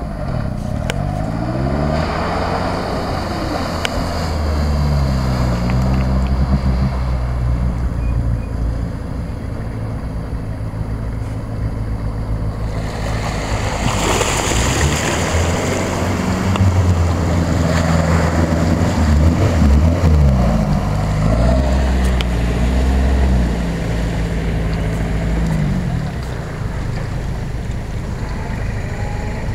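4x4 engines revving up and down as the vehicles push through deep water, with a loud rush of splashing water about halfway through.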